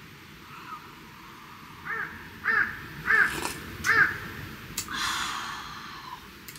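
A crow cawing four times in quick succession, then a noisy slurping sip from a hot mug.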